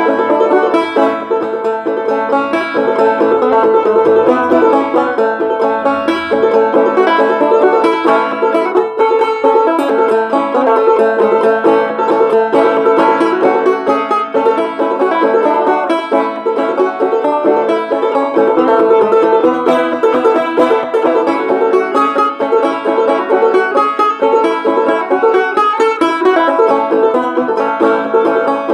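Solo banjo played clawhammer style: a steady run of plucked notes in old-time fiddle-tune rhythm, without pause.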